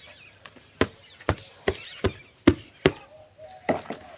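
Dry chunks of cement or hardened mud crumbling and snapping, about seven sharp cracks spaced roughly half a second apart.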